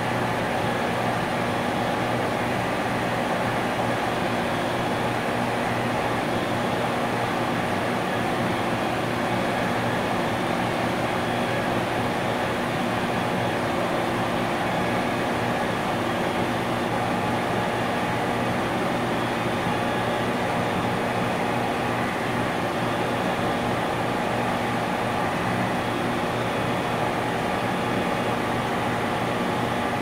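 Industrial compressor running steadily, a constant mechanical hum with a low drone.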